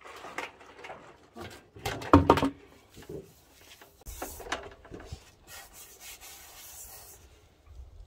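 Dishes washed by hand in a large metal basin: metal pots, bowls and trays clanking and scraping, with water poured from a bucket and splashing. The loudest is a cluster of clanks about two seconds in.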